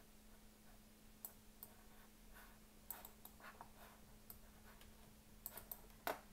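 Faint, irregular clicks of a computer mouse and keyboard, about a dozen scattered through, the loudest near the end, over a steady low electrical hum.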